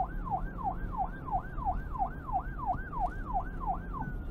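Emergency vehicle siren in a fast yelp, its pitch swinging up and down about three times a second. Near the end it changes to one long tone that slides slowly down. A low rumble runs underneath.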